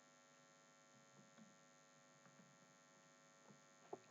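Near silence: a faint steady electrical hum, with a small click near the end.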